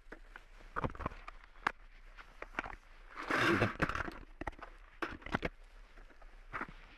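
12-gauge shotgun shells and cardboard ammunition boxes being handled on a table: scattered light clicks and rattles, with a longer rustle about three and a half seconds in.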